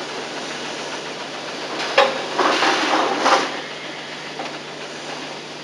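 A plastic seat backrest moulding is being handled and pressed into position: one sharp click about two seconds in, then about a second of rough scraping, over a steady tape hiss and low hum.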